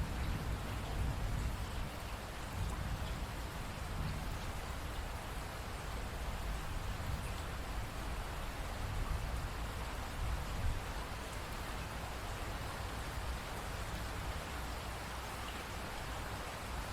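Steady rain falling, a dense even patter of raindrops with a low rumbling undertone.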